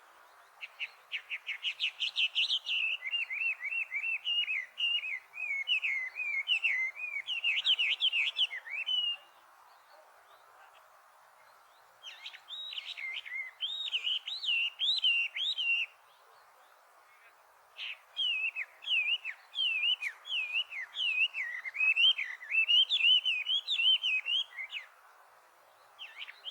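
Chinese hwamei singing: long runs of quick, constantly varied whistled notes in three bouts with short pauses between them, over a faint steady background hiss.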